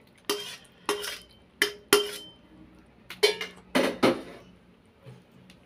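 Metal spatula knocking and scraping against a frying pan as the last of the tauco sauce is scraped out onto the plate: sharp, ringing clacks about every half second, then a quicker cluster of knocks and scrapes around three to four seconds in.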